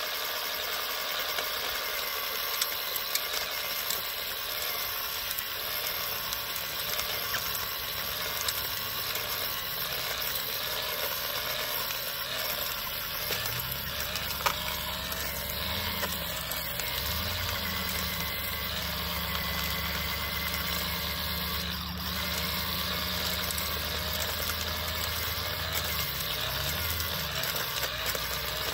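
Ukoke cordless electric garden tiller running with its tines churning through soil: a steady motor whine that wavers in pitch as the tines bite into the dirt, with occasional clicks.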